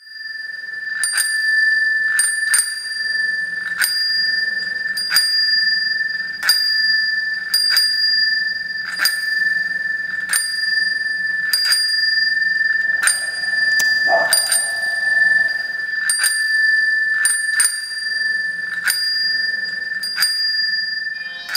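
A sustained high-pitched ringing tone, with a fainter higher overtone, held steady throughout. Sharp clicks break through irregularly, roughly once a second, and a brief lower swell rises and fades about two-thirds of the way through.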